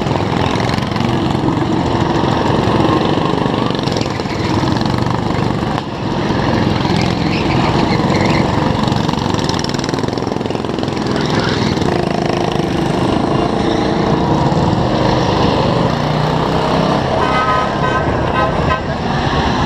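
Small go-kart engines running as a procession of Shriners' karts and mini cars drives past, with horn toots among them.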